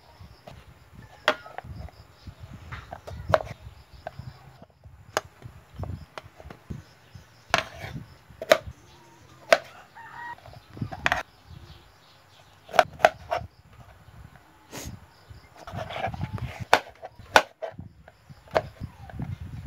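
Kitchen knife chopping bottle gourd on a plastic cutting board: uneven sharp knocks as the blade strikes the board, some in quick pairs.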